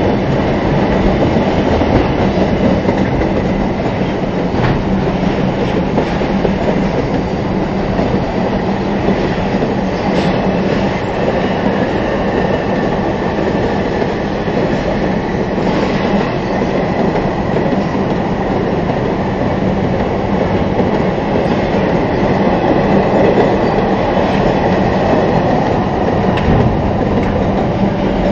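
Loaded freight hopper wagons rolling steadily past close by: a continuous rumble of steel wheels on rail, with a few sharp knocks along the way.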